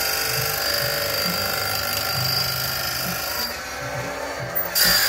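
Oregon automatic saw-chain grinder sharpening a chainsaw chain: the abrasive wheel grinds steel with a steady high whine and hiss. The grinding stops about three and a half seconds in as the head moves on to the next tooth, then starts again about a second later.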